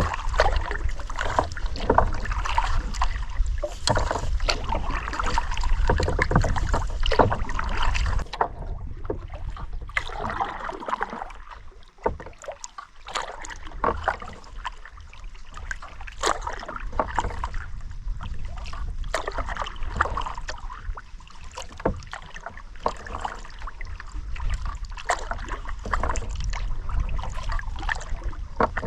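Kayak paddle strokes splashing and dripping in lake water, an irregular series of small splashes. Wind rumbles on the microphone for the first eight seconds or so.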